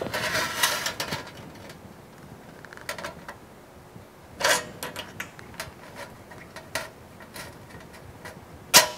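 Aviation snips cutting notches in thin galvanized sheet steel: a rasping cut through the first second, then a handful of short sharp snips and metallic clicks, the loudest about halfway through and just before the end.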